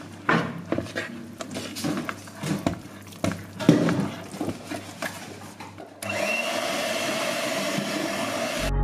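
Kenwood electric hand mixer beating thick cake batter, its motor humming while the beaters clatter and knock irregularly against the bowl. About six seconds in it turns into a louder, steady whir that stops abruptly near the end.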